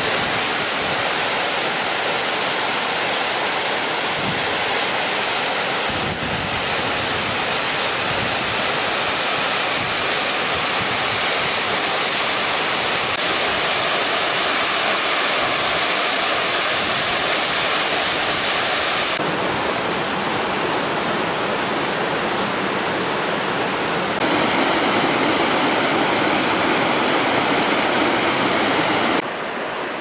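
A tall waterfall plunging onto rocks and into its pool: a loud, steady rush of falling water. Its loudness and tone shift abruptly a few times.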